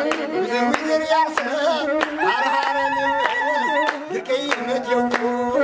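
Ethiopian azmari singers singing a traditional song together, with long wavering held notes, over steady hand clapping at about two claps a second.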